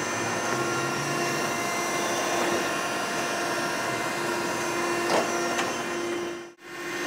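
Okamoto surface grinder running under hydraulic power, a steady hum with several held tones while the table and cross-feed work. Two faint clicks come about five seconds in, and the sound cuts out briefly near the end.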